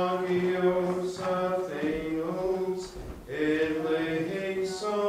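A man's voice chanting slow liturgical plainchant, long held notes in three phrases with short breaks between them.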